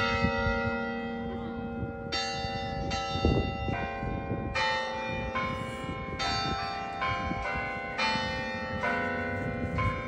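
Carillon bells in a tower playing a Christmas carol melody. A new bell note is struck every half second to a second, each ringing on and overlapping the next, so the notes blend into chords.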